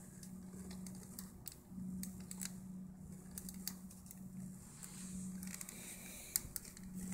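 Light, scattered clicks and taps of wooden craft sticks and toothpick pins being handled and pressed on a paper-covered table, over a faint low hum that comes and goes.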